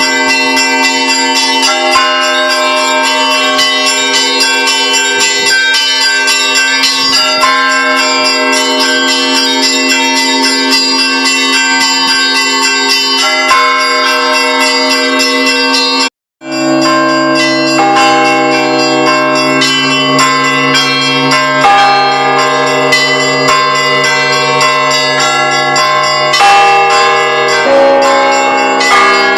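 Russian Orthodox church bells ringing the evening peal after a service, several bells struck over one another in a continuous clangour. About halfway through the sound cuts out for a moment; after that a deeper bell rings along with the smaller ones.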